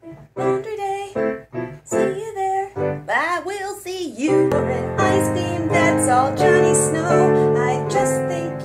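A woman singing to her own digital piano accompaniment: short sung phrases with brief gaps at first, then from about halfway through a longer melody over held piano chords.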